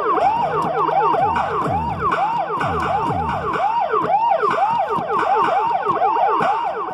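Synthesizer siren patch on a Yamaha MOXF8 keyboard: quick, overlapping wails that rise and fall in pitch, about three a second, with deeper falling sweeps underneath.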